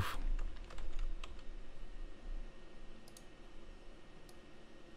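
A few faint computer keyboard keystrokes in the first second or so, then a couple of quick clicks about three seconds in.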